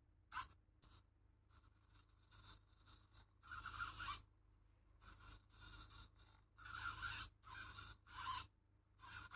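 Small blue micro servo on an RC rock crawler's front steering, buzzing in short stop-start rasping bursts as it swings the steering. The bursts are loudest about halfway through and again near the end.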